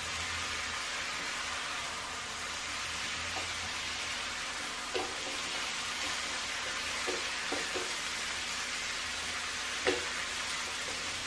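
Cabbage and potato sabzi sizzling steadily in a pan as it is stirred with a wooden spatula. A few light knocks of the spatula against the pan come through, the loudest near the end.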